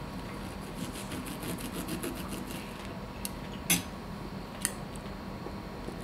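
Knife sawing back and forth through a seared pork steak, a quick run of rasping strokes. Then three sharp clinks of cutlery against the plate, the loudest a little past halfway.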